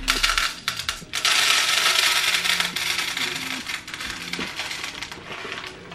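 Hard wax beads poured from a packet into a wax-warmer pot: a stream of small pellets rattling into the pot for about two seconds, then thinning to scattered clicks, with some crinkling of the packet.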